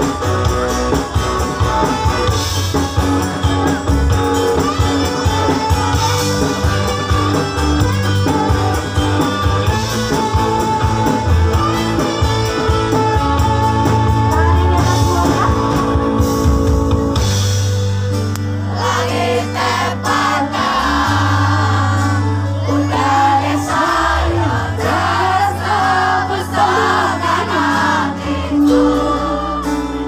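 A live band playing an amplified instrumental passage with electric guitar, drum kit and saxophone; about eighteen seconds in, a woman's lead vocal comes in over the band.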